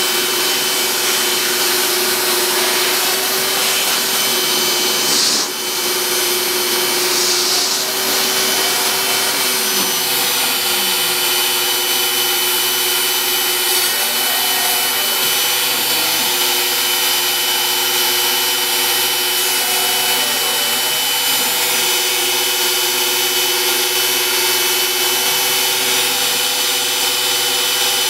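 Home-built CNC router cutting MDF: the wood router's motor runs steadily at speed while the bit routes a shallow pass, with fainter tones sliding up and down as the machine's axis motors change speed along the cut path.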